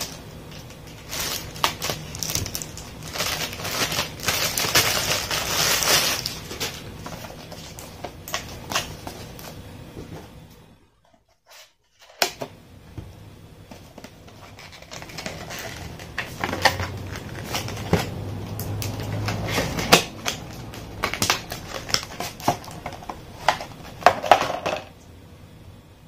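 Unboxing handling noise: a plastic accessory bag crinkling and rustling, with many small clicks and taps of parts and packaging. It breaks off for about a second some eleven seconds in, then resumes.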